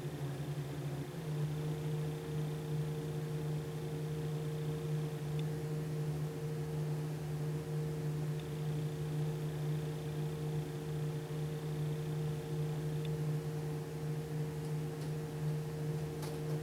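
A steady mechanical hum, like a small motor or fan running, stepping up slightly in pitch about a second in, with a few faint clicks near the end.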